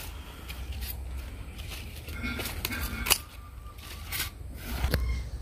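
Scissors snipping through plant stems: several sharp snips at irregular intervals.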